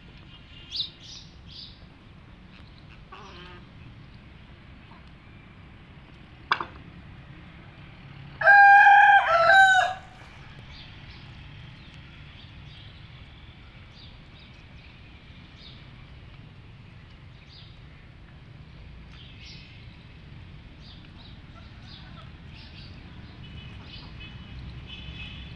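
A rooster crows once, a loud call of about a second and a half some eight seconds in, among hens clucking softly as they feed.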